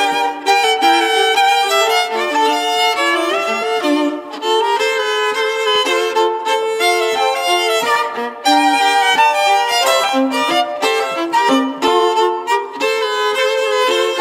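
Unaccompanied violin playing a joropo, the Venezuelan folk dance, in quick bowed notes that change several times a second.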